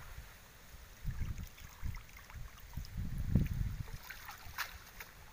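Water splashing and streaming as a wet nylon cast net is gathered and hauled up out of a pond. Low gusts of wind rumble on the microphone, loudest about three and a half seconds in.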